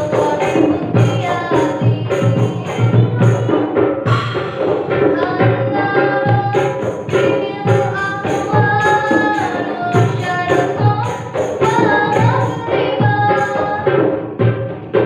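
A girl sings a sholawat in a solo voice over a marawis ensemble. A large double-headed drum, small hand drums and metallic jingles keep a steady beat throughout.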